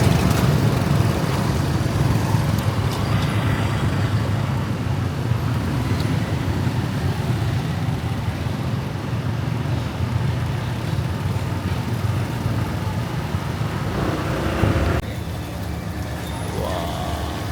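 Steady city road traffic: the low rumble of passing vehicles, with a slight drop in loudness near the end.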